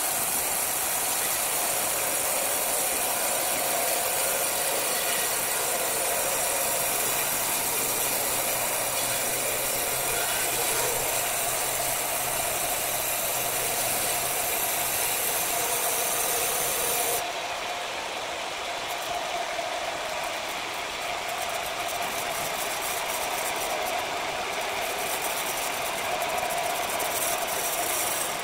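Large horizontal band sawmill running, its steel blade cutting lengthwise through a thick hardwood slab with a steady, hissing mechanical noise. About two-thirds of the way in the high hiss falls away and it gets a little quieter, with some faint crackling.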